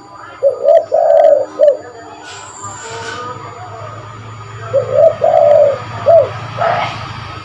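Spotted dove cooing its song: two phrases of about four low coos each, a few seconds apart.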